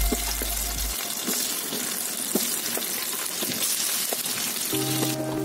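Spice-coated mutton pieces sizzling in hot oil and butter in a frying pan as more pieces are dropped in: a steady sizzle with scattered crackles and spits.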